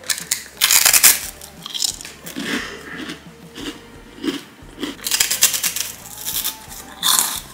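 Close-up crunching of a seaweed rice cracker: a loud crisp bite about half a second in, then repeated crunches of chewing, and another crisp bite near the end.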